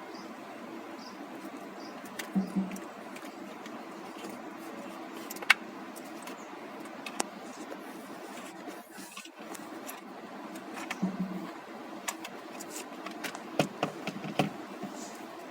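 Scattered light clicks and a few short knocks, as of hand work on a car's steering-wheel parts, over a steady low hum.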